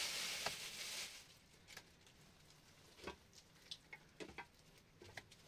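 A rough rubbing noise for about the first second, then scattered light taps and clicks.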